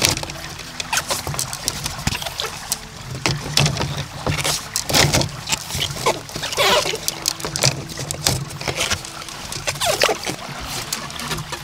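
Hands lashing split banana stems and bamboo together with cord: irregular rustles, creaks and knocks as the stems are pulled and shifted, over a low steady hum.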